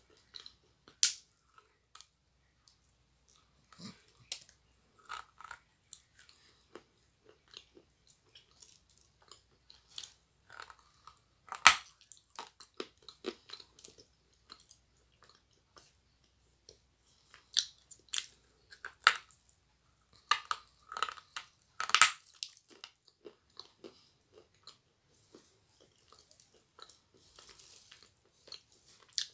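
Biting and crunching hard, dry chunks of Alenka edible clay, chewed close to the microphone. Irregular crisp crunches come with quiet gaps between them, and two of them, about a third and three-quarters of the way through, are much louder than the rest.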